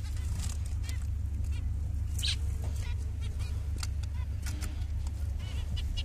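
Zebra finches calling in an aviary: many short, overlapping chirps and calls, over a steady low hum.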